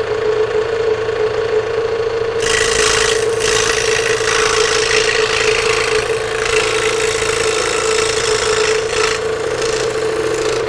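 Scroll saw running with a steady motor hum. About two seconds in, its blade starts cutting through thin lauan plywood, adding a hiss of sawing that carries on with brief dips.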